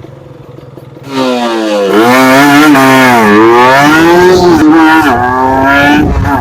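Bored-up motorcycle engine revving loudly from about a second in, its pitch repeatedly falling and rising again as the throttle is worked.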